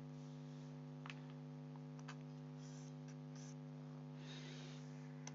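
Steady, faint electrical hum, with a few faint ticks.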